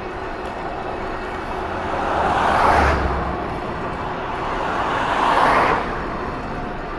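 Two road vehicles passing one after the other, their tyre and road noise swelling and fading about three seconds apart over a steady background hiss.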